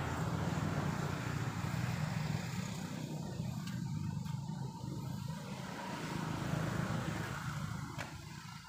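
Motor vehicle engine running nearby, a steady low rumble that fades out near the end.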